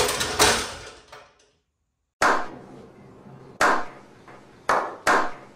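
Music fading out, then after about a second of silence a series of sharp knocks, one every second or so, each ringing briefly.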